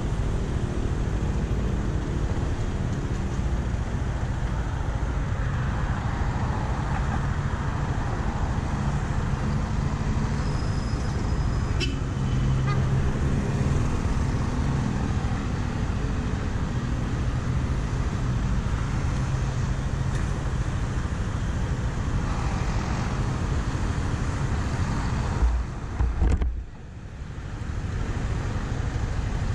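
Yamaha NMAX 155's single-cylinder scooter engine running under way in city traffic, with steady road and wind noise and other vehicles around it. The sound cuts away sharply for about a second near the end.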